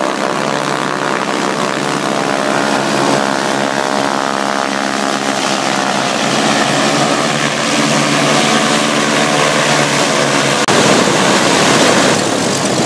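Piston-engine light planes taxiing with propellers turning: a steady engine drone whose pitch shifts partway through. About ten seconds in it changes abruptly to the louder, rougher sound of a single-engine aerobatic propeller plane taxiing close by.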